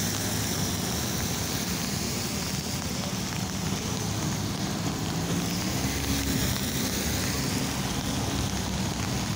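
Road traffic on wet pavement: a steady hiss of tyres and a low engine hum, with a van driving past about halfway through.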